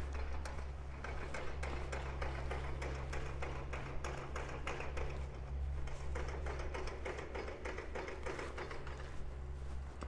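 A walker's footsteps, a steady run of short taps, over a low steady rumble.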